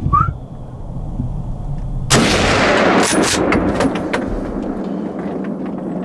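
A single rifle shot from a Browning BPR pump-action rifle about two seconds in: a sharp, loud report that rolls away over the next couple of seconds.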